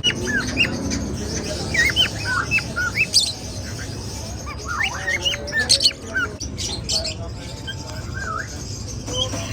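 Many caged birds chirping and calling at once: short rising and falling whistled chirps, with a few harsher screeches, over a steady low hum.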